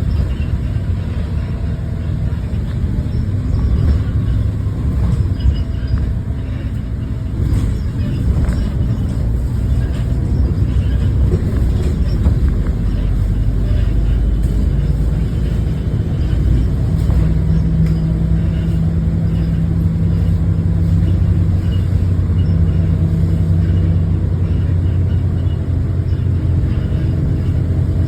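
Bus engine and drivetrain running under way: a steady low rumble, with a low hum that grows stronger about 17 seconds in.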